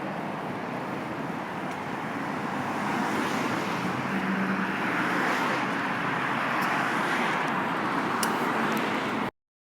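Street traffic noise picked up by a phone's microphone: a steady wash of passing cars that swells a little from about three seconds in, then cuts off abruptly near the end as the stream stops.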